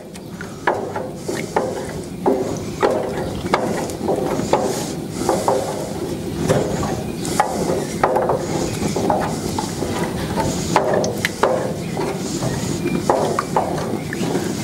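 A spoon stirring thick tomato sauce in a stainless steel roasting pan, with irregular scraping and knocking against the pan's bottom and sides and wet squelching of the sauce.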